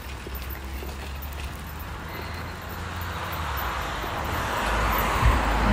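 A passing vehicle approaching, its road noise growing steadily louder over the last few seconds.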